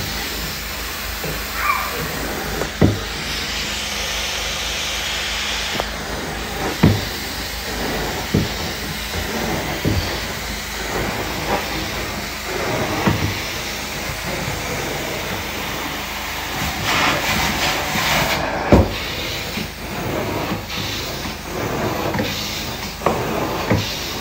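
Carpet extraction wand sucking water out of shag carpet with a steady hiss, broken by several dull knocks spaced unevenly as the wand is worked across the floor in strokes.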